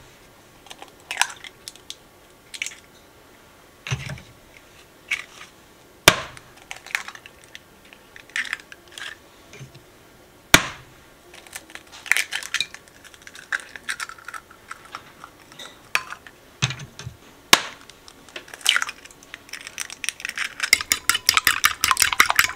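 Eggs cracked on the rim of a ceramic bowl: several sharp knocks a few seconds apart, with small clinks and taps between. Near the end a fork beats the eggs against the bowl in a fast run of clicks.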